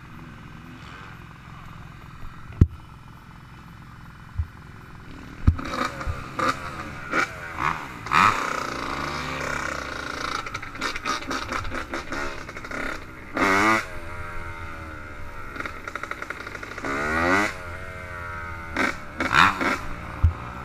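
Yamaha YZ85 two-stroke dirt bike engine, low at first with a few sharp knocks, then revved in short blips and rising and falling sweeps as the bike rides off.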